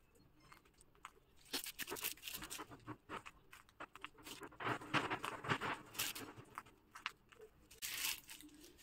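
Plastic piping bag crinkling and rustling in irregular bursts as it is squeezed and handled while cream rosettes are piped.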